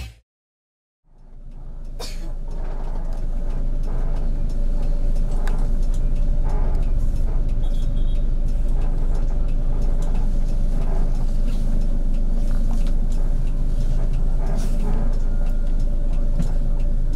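Coach bus engine running as the bus rolls slowly, heard from inside the cabin: a steady low rumble with a faint even hum and a few light clicks. It fades in after a short silence about a second in.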